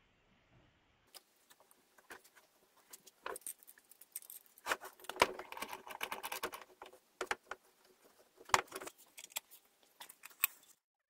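Steel screw clamp clinking and rattling as it is handled and set on a wooden disc, with many sharp clicks and knocks of metal on wood; the loudest knocks come about five and eight and a half seconds in.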